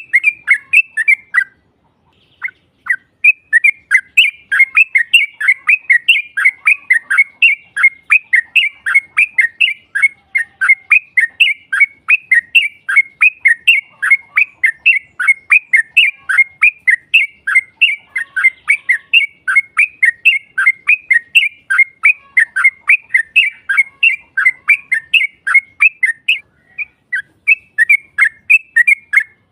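Yellow-vented bulbul (trucukan) song: a long unbroken run of rapid, falling chattering notes, about three a second. It breaks off briefly about two seconds in and again near the end. This is the long 'ropel' song used as a lure to make rival birds answer.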